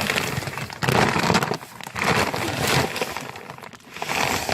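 A large bag of horse feed being handled and wrestled into a tub, rustling and scraping in several loud bursts.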